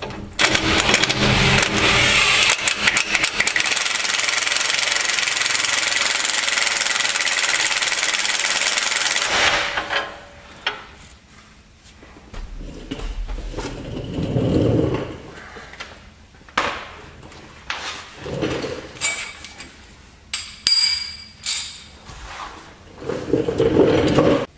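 Impact wrench (rattle gun) hammering steadily for about nine seconds, then stopping suddenly, as it is run lightly to snug up the nuts on new leaf-spring U-bolts. After it come scattered clanks and handling noises from tools and hardware.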